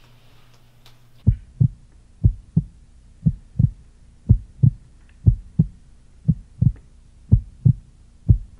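Heartbeat sound effect: deep paired lub-dub thumps, about one pair a second, starting about a second in.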